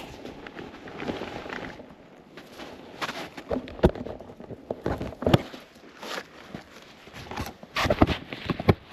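Footsteps crunching through snow: irregular steps and scuffs, a few of them sharper and louder.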